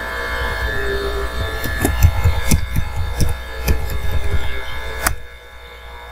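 Background music with sustained droning tones over a steady low electrical hum, with a scatter of computer keyboard clicks as a password is typed. About five seconds in comes a sharp mouse click; the music cuts off there and only the hum remains.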